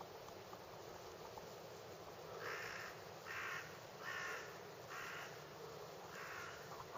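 A crow cawing five times in a row, starting about two seconds in, each caw short and harsh.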